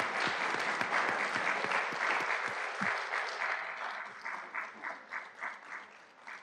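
Audience applauding, dense at first, then thinning to scattered single claps that die away near the end.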